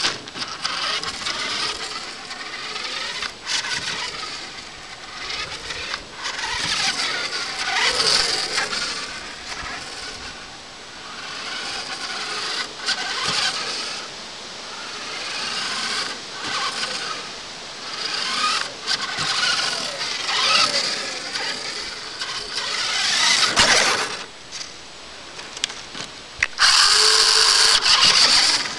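XMODS mini RC car's small electric motor and gears whining, revving up and down again and again, with a loud steady full-throttle whine near the end.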